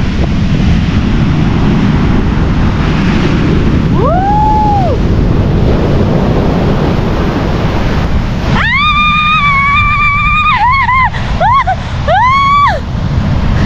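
Wind on the microphone over sea surf. About four seconds in there is one high call that rises and falls. From about eight and a half seconds on comes a string of high calls that rise and fall, one long and then several short ones, ending shortly before the close.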